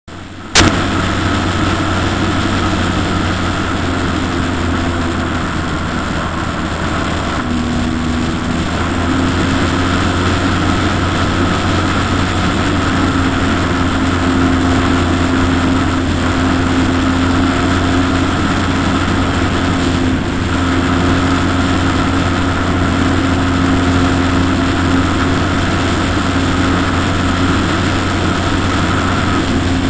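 Model aircraft's motor and propeller running steadily, heard up close through its onboard camera, a continuous hum with an even tone; a sharp click about half a second in.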